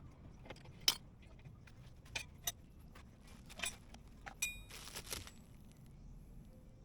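Scattered light metallic clinks and taps of hand tools and small metal parts being handled during brake work, with a short rattling scrape about five seconds in.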